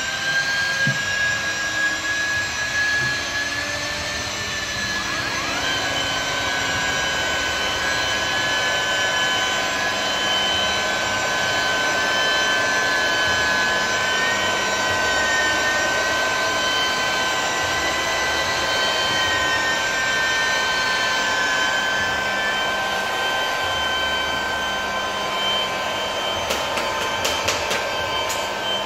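Electric rotary polisher with a felt pad running steadily against car windshield glass: a motor whine whose pitch wanders slightly as the pad works the glass. A few sharp ticks come near the end.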